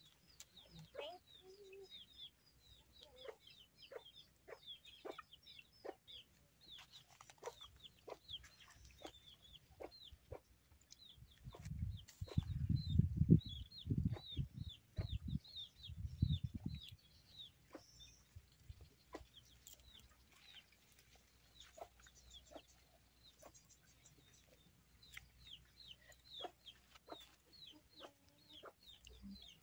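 Domestic chickens clucking, with many short, high peeps that fall in pitch. About twelve seconds in, a low rumble lasting some five seconds is the loudest sound.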